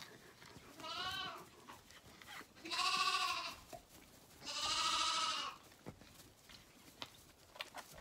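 Zwartbles lambs bleating at bottle-feeding time: three wavering bleats about two seconds apart, the first short and quieter, the last the longest. A few faint taps follow near the end.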